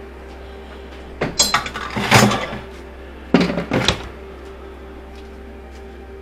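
Clattering knocks and rattles of junk being handled and tossed into a bin, in two bursts, one about a second in and one at about three and a half seconds.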